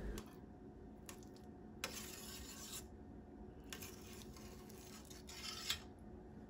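Metal spoon smoothing and pressing cooked vermicelli in a stainless steel pan: a few soft scraping strokes, faint.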